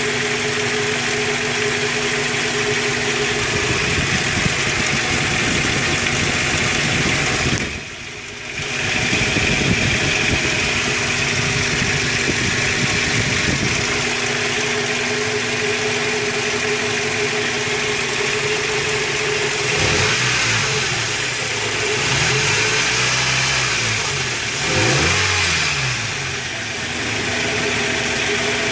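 2001 Toyota Tacoma Prerunner's 2.7-litre four-cylinder (3RZ-FE) engine running with a clatter noise. The engine speed rises and falls a few times in the second half.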